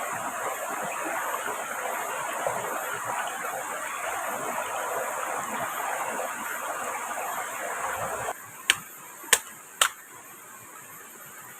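Steady rushing of heavy rain and flowing water. About eight seconds in it cuts off abruptly to a quieter background, and three sharp knocks follow, about half a second apart.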